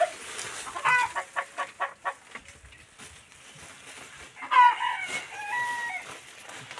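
Domestic chickens calling: a quick run of short clucks about a second in, then a longer drawn-out call that holds a steady note and steps down in pitch, from about four and a half to six seconds in.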